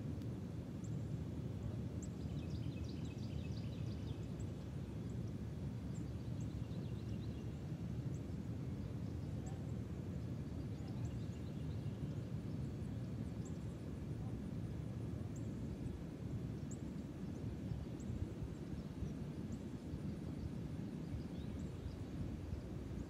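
Outdoor ambience: a steady low rumble with faint, short, high bird chirps every second or two, and a brief burst of twittering a few seconds in.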